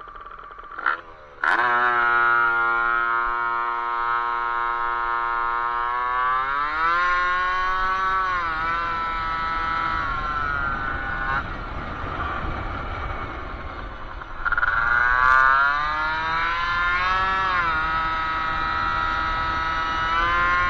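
1978 Honda Hobbit moped's tuned 50cc two-stroke single (Stage6 R/T MK1 kit) pulling away from idle under hard throttle. It is quiet at first, then gets suddenly loud about a second and a half in, with the pitch climbing as the moped gains speed. The pitch eases back around ten seconds in and climbs again from about fourteen seconds.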